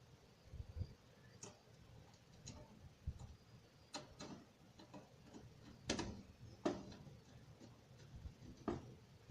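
Light, irregular clicks and taps of screws and a screwdriver on a motherboard and a metal PC cabinet as the motherboard is screwed into place, about seven over several seconds.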